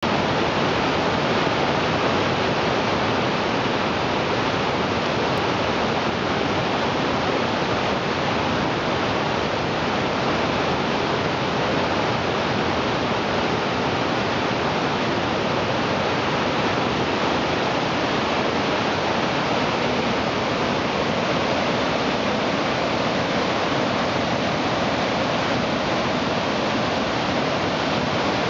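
Mountain creek cascading over boulders, a steady, even rush of white water with no breaks or separate splashes.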